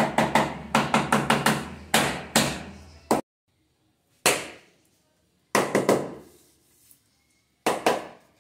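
Rubber mallet tapping ceramic wall tiles to bed them into the tile adhesive: quick runs of taps, about eight in the first three seconds, then shorter groups with brief silences between.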